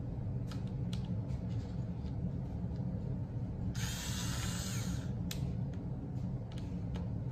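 Small cordless electric screwdriver running steadily, driving a screw into a particleboard panel. A harsher, louder stretch lasts about a second near the middle, and there are a few sharp clicks.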